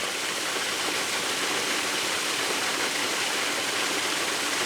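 Small waterfall gushing steadily over rocks and splashing down onto the rocks below: an even, unbroken rush of water.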